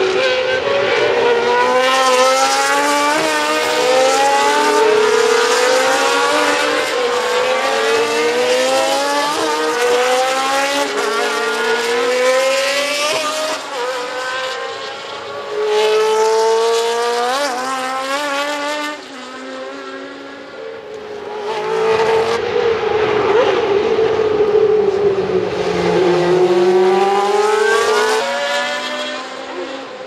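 Historic Formula One racing car engines at high revs as the cars pass, pitch climbing again and again and dropping sharply at each upshift. Later a single car's engine note falls and then climbs back.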